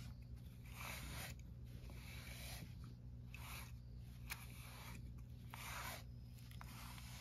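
A series of faint, soft rubbing or scraping strokes, about one a second.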